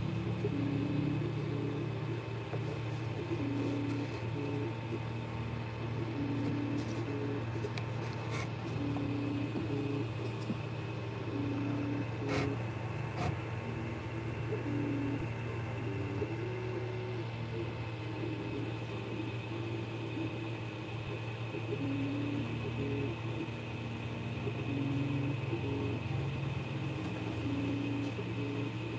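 Creality 3D printer printing a bed-leveling test pattern: its stepper motors whine in short tones that jump in pitch as the print head changes direction and speed, over the steady hum of the cooling fans. A single click about twelve seconds in.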